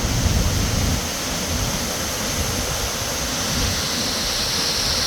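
Sahalie Falls, a 100-foot waterfall on the McKenzie River, heard at close range as a steady, even rushing of falling water.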